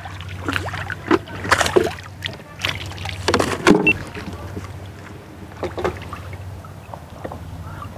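A hooked tilapia splashing at the water surface in irregular bursts as it is played in on the line, most of them in the first four seconds and one more near six seconds.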